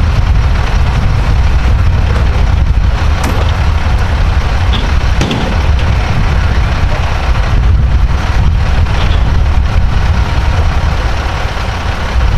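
Diesel engine of an International fire tanker truck idling with a steady, loud low rumble, with a few faint clicks over it.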